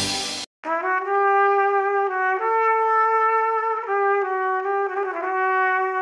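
Background music: a slow single-line melody of long held notes, each lasting about a second. It starts after a brief silent break about half a second in, where a busier piece cuts off.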